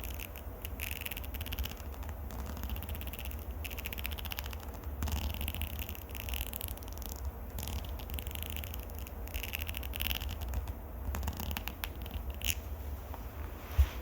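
Fingers or nails scratching directly on a microphone, giving a continuous crackly rasp over a low handling rumble, with one sharper knock near the end.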